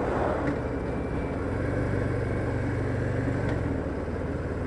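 The 1,868 cc (114 cubic inch) V-twin engine of a 2023 Harley-Davidson Fat Boy running steadily while riding, its firing pulses heard from a helmet-mounted microphone.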